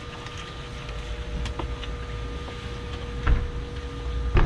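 Steady low rumble with a faint steady hum, broken by two dull thumps, one a little past three seconds in and one near the end.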